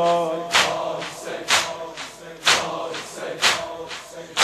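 A crowd of mourners beating their chests in unison (sineh-zani) in a slow, even beat of about one stroke a second. A held sung note from the chant dies away just as the beating begins.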